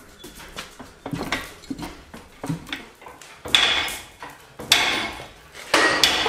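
Fly press striking a hot steel bar held in its tooling: a few lighter knocks, then three loud metallic clanks about a second apart, each with a brief ring.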